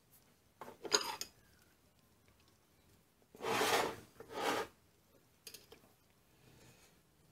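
Metal lathe headstock parts and hand tools handled on a workbench. About a second in there is a short metallic clatter, and a little past halfway come two louder half-second scraping, sliding noises as the cast headstock is shifted on the bench. A few light clicks follow.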